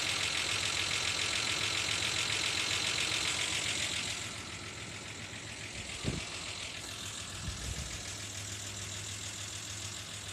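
1987 Ford Ranger's 2.9-litre V6 idling with a fast, even ticking from the valvetrain, loudest in the first four seconds and fainter after. Two short thumps come about six and seven and a half seconds in. The owner cannot tell whether the tick is lifters or pushrods, and oil pressure sits under 40 psi where it normally runs at about 50.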